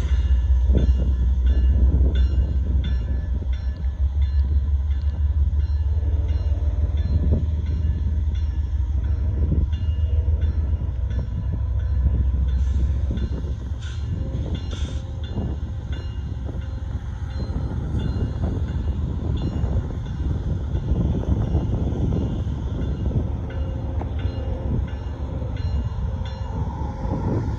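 Union Pacific freight train of gravel cars rolling past on the rails: a deep, steady rumble, heaviest for the first twelve seconds or so and then settling into lighter running noise, with a few sharp clanks a little before the middle.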